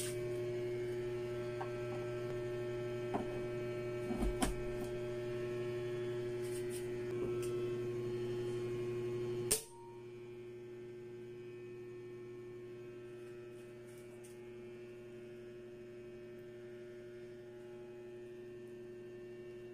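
Steady electrical mains hum with a few light clicks. About ten seconds in, a sharp click comes and the hum drops to a fainter level for the rest.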